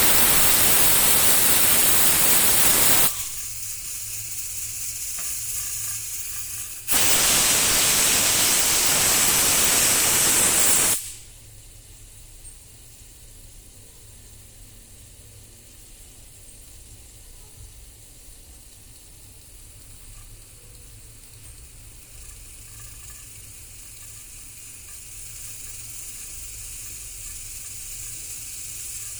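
Pressure cooker venting steam with a rushing hiss. Two loud bursts come about four seconds apart, each lasting three to four seconds, followed by a softer steady hiss that swells slightly near the end.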